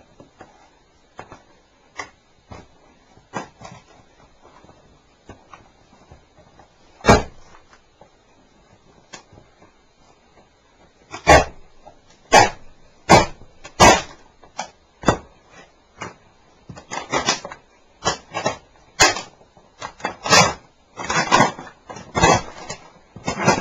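Motocross boots stomping on a portable cassette recorder, crushing it: a few light taps, one hard stomp about seven seconds in, then from about eleven seconds a run of heavy stomps about one a second, growing quicker and denser near the end.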